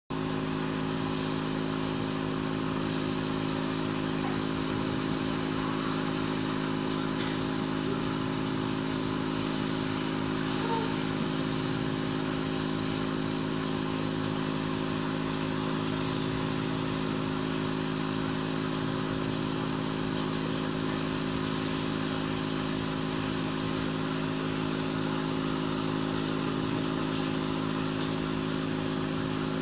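A small motor humming steadily: several held tones with a constant hiss over them, unchanging throughout.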